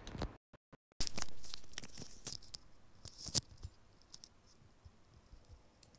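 Close handling noise from white wired earphones with an in-line microphone being plugged in and fitted: sharp clicks and rustling, loudest about a second in and again around three seconds in, then a few faint ticks. The sound cuts out for a moment shortly before the first second.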